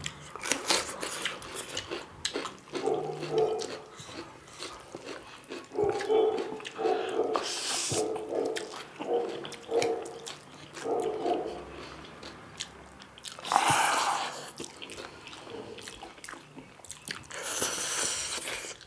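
Eating sounds close to the microphone: crunching bites and chewing of raw salad slices, and spicy noodles slurped up with chopsticks in three sharp, hissing slurps, a little before halfway, about three-quarters through and near the end.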